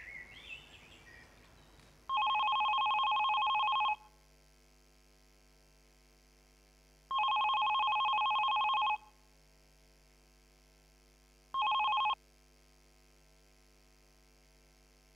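Landline telephone ringing with an electronic ring: two rings of about two seconds each, then a short third ring cut off when the handset is picked up.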